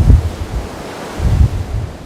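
Wind buffeting the microphone in gusts, a loud irregular low rumble that drops away briefly in the middle and comes back near the end.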